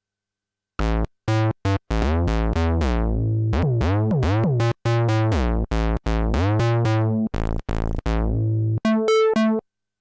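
Steinberg Prologue virtual-analog synthesizer playing a bass preset: a riff of short bass notes, each with a bright attack that quickly dulls, starting about a second in. A few notes in the middle bend up and down in pitch, and it ends with a quick higher-pitched run.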